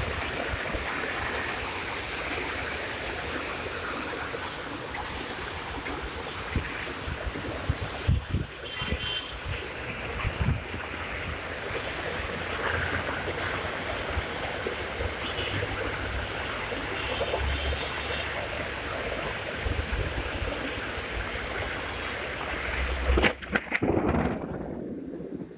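Heavy rain pouring and rainwater rushing down a long flight of steps like a waterfall: a steady loud hiss of falling and running water, with occasional low thumps. Near the end the hiss drops off suddenly.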